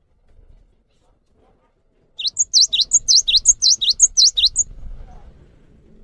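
Cinereous tit (gelatik batu) singing one loud, quick phrase: a high note then a fast downward slide, repeated about five times in two and a half seconds, starting about two seconds in.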